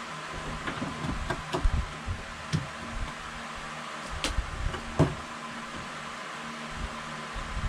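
Knocks and clicks of hands working plumbing fittings as the shower's water lines are reconnected, scattered over the first five seconds or so with two louder knocks, over a steady low hum.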